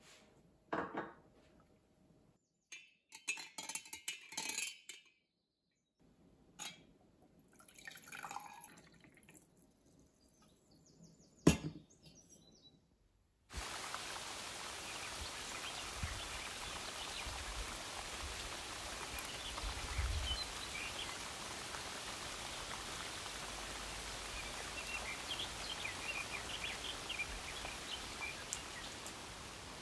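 Small kitchen sounds of liquid pouring and dripping, with a few light clicks and one sharp click. About 13 seconds in they give way to a steady outdoor hiss of forest ambience with faint bird chirps.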